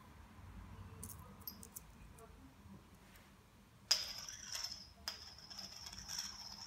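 Metallic jingling and rattling from a feather wand cat toy's metal end as it is flicked and dragged across a laminate floor: two bursts, the first starting sharply about four seconds in, the second a moment later and running longer.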